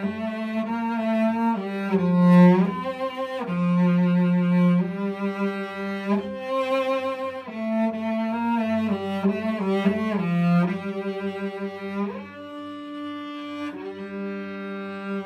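Solo cello, bowed, playing a melody over a steady lower drone note held beneath it, with quick runs of notes. About twelve seconds in it drops to a softer passage.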